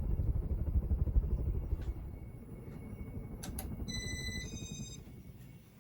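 Fluttering rumble of air from a Casablanca Spirit of Saturn ceiling fan running at speed and blowing on the microphone, dying down over the last second or two. About three and a half seconds in there are two sharp clicks, followed by a short electronic beep.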